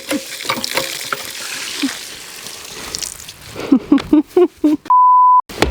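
Running water hissing, then a few short voice-like sounds, then a loud half-second single-pitch beep of a censor bleep that cuts off abruptly.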